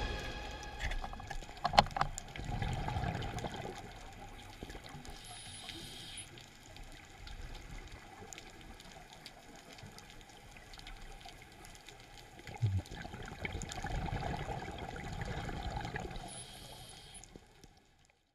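Underwater sound through a camera housing: a scuba diver breathing on a regulator, with bursts of exhaled bubbles about two seconds in and again around fourteen seconds, and a faint hiss between them. The sound cuts off shortly before the end.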